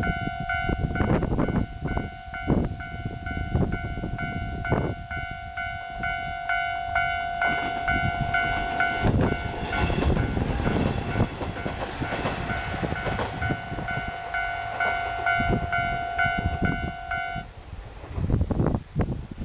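Japanese railway level-crossing warning bell ringing in rapid, evenly spaced dings while a train passes, its wheels clacking irregularly over the rail joints with a rumble that grows loudest in the middle. The bell cuts off sharply a couple of seconds before the end.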